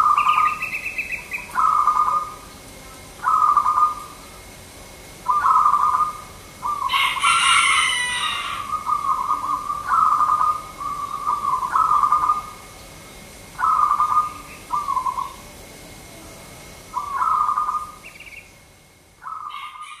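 Zebra dove (local perkutut) cooing its rhythmic 'manggung' song, short rolling phrases repeated every one to two seconds. A brief harsh, rasping sound cuts in about seven seconds in.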